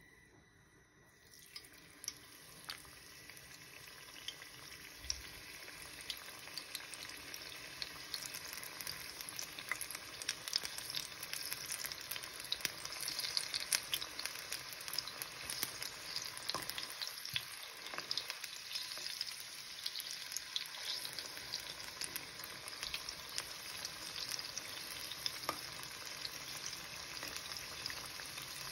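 Aloo palak pakora batter deep-frying in a pan of hot oil: sizzling with many small crackles, growing louder over the first several seconds and then holding steady.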